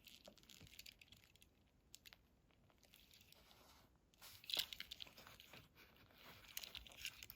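Faint handling noises: scattered light clicks and brief rustles as small die-cast toy cars are picked up and set down.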